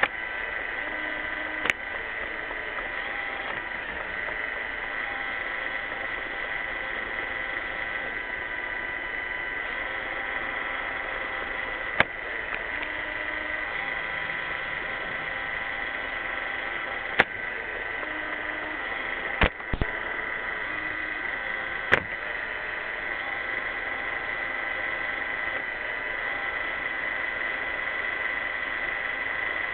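iRobot Roomba 600-series robot vacuum running, a steady motor and brush whine with a few sharp knocks at irregular intervals.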